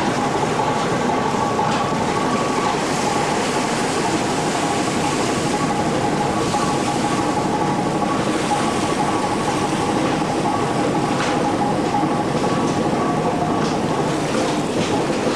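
Fishing trawler's engine and deck machinery running steadily, with a few held whining tones over the rush of the churning wake.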